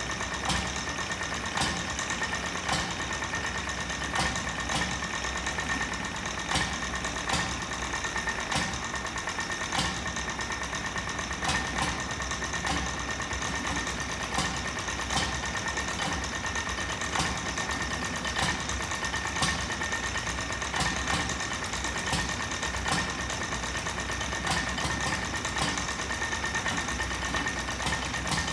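1923 Petter M 'Little Pet' 1.5 hp stationary engine running steadily with an even mechanical beat, a louder beat coming about every two seconds.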